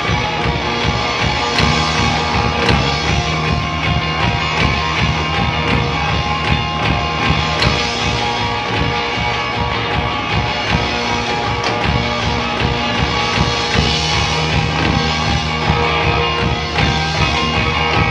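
Live rock band playing an instrumental passage: electric guitars over a drum kit, loud and steady, with a repeating rhythmic bass line.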